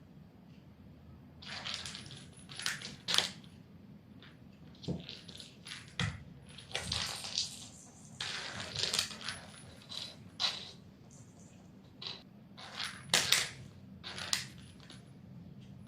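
Irregular rustling and crinkling with sharp clicks, in uneven bursts of a second or less, like something light being pushed and batted about during play.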